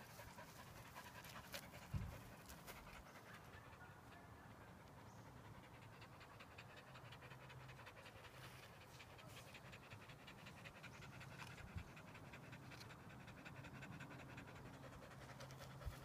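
Dog panting faintly, quick and steady, with one soft thump about two seconds in.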